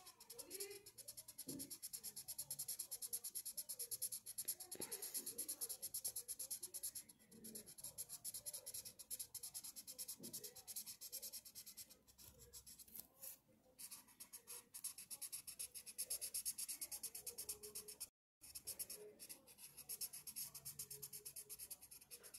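Faint scratching of a felt-tip marker rubbed quickly back and forth on paper, colouring in with rapid short strokes, broken by a few brief pauses.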